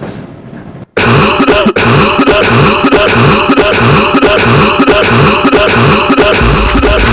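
Loud cough- and throat-clearing-like sounds repeating in a steady rhythm about twice a second. They start abruptly about a second in, and a low bass tone joins near the end.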